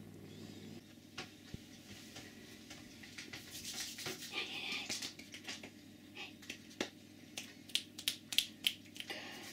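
Kittens shuffling about in a plastic laundry basket: scattered clicks and scratches of claws on plastic, a spell of scratchy rustling in the middle, and a run of sharper clicks near the end. A cat's low purr is heard for the first second.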